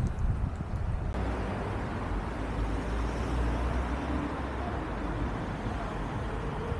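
Steady city street traffic noise, a low rumble of cars on a nearby road, with a change in the background about a second in.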